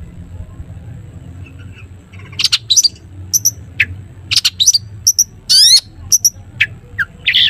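Long-tailed shrike (cendet) singing its 'toet toet' song: after about two seconds of low steady hum, a rapid run of loud, short, sharp notes, with one longer rising note in the middle.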